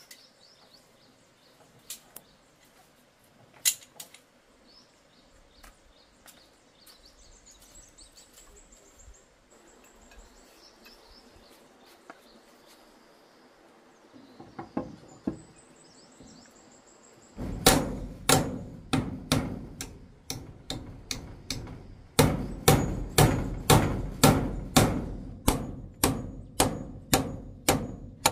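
Birds chirping faintly at first, then, from a little past halfway, a hammer striking steadily and loudly at about two blows a second.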